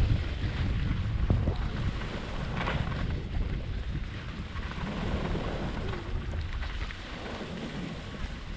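Snowstorm wind buffeting a GoPro helmet camera's microphone: a low, gusty rumble, strongest at the start and easing off, with a brief higher hiss about two and a half seconds in.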